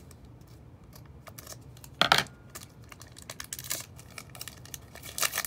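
Scattered clicks, taps and light rustling of things being handled close to the microphone, with one louder knock about two seconds in and a quick run of clicks near the end.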